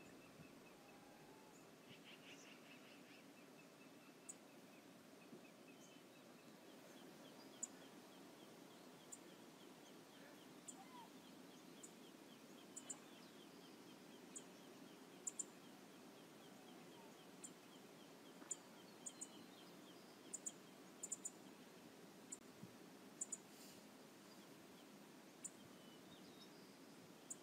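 Near silence: faint outdoor ambience, a steady low hiss with a faint trilling bird call now and then and scattered sharp ticks.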